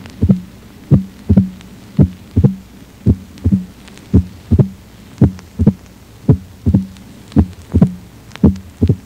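Simulated heart sounds of mitral stenosis, about one beat a second: a sharp first heart sound, then the second heart sound with the mitral valve's opening snap, a short high-pitched click, close behind it.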